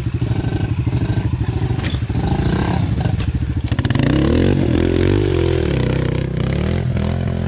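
Pit bike engines: a fast, even putter at low revs, then from about four seconds in an engine revving up and down as a bike is ridden over a log.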